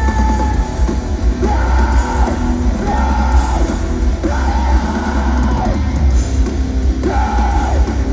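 Rock band playing live, loud, with heavy bass, guitars and a singer's voice in repeated held phrases about a second long.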